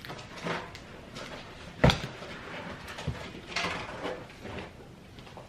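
Grocery items being handled and set down: scattered rustling with a sharp knock about two seconds in and a softer one a second later.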